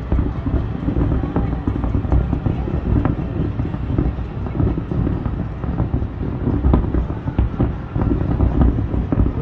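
Distant fireworks display: a continuous rumble of overlapping booms, with scattered sharp crackles and pops.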